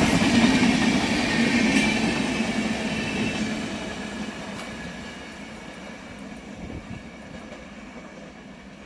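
Wheel and rail noise of an express train's LHB coaches rolling past at speed, the last coach going by about four seconds in. The noise then fades steadily as the train pulls away.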